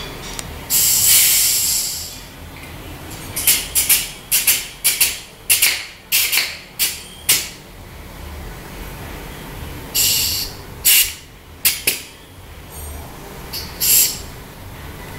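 Pressurised spray hissing in bursts: one long blast, then a quick run of about a dozen short puffs, then another long blast and a few more short ones.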